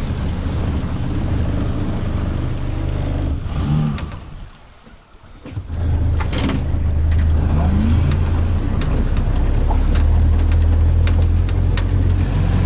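Toyota Hilux LN106's diesel engine running steadily under load while towing a car through shallow river water. The drone dips away briefly about four seconds in, then comes back stronger.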